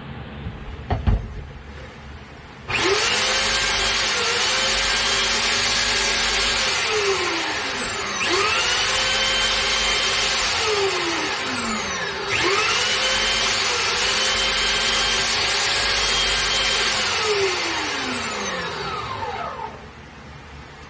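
Handheld electric sander run three times on a small wooden piece. Each time it spins up with a rising whine to a steady run and then winds down with a falling pitch; it restarts about 8 and 12 seconds in and runs down for the last time near the end. A couple of knocks come about a second in, before the first start.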